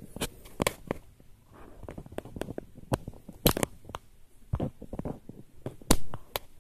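Irregular clicks and knocks of fingers handling the plastic receiver of a Drozd MP-661K airgun and pressing at a small switch on its side, with the loudest knocks a little past the middle and near the end.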